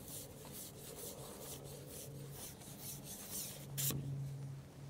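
Long carbon fishing pole rubbing and scraping as it is handled while a hooked roach is played: a run of quick, irregular rasping strokes, with one sharper knock near the end.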